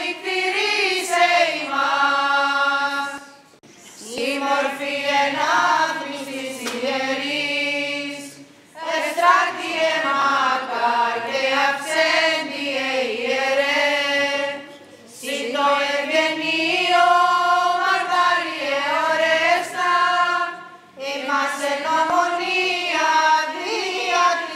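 Greek Orthodox Byzantine chant: voices sing a slow, melismatic hymn to the Theotokos in unison over a low, steadily held drone note (the ison). The phrases are broken by short breath pauses every four to six seconds.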